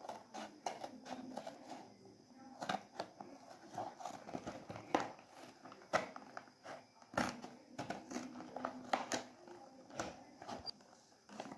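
Scissors snipping through a thin cardboard box, a string of irregular sharp snips and clicks with some crinkling of the card.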